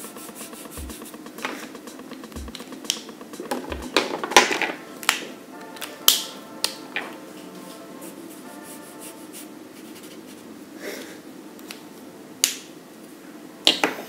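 Quick swipes of a marker across paper: short scratchy strokes, clustered and loudest a few seconds in, with a few more sharp ones near the end, over soft background music.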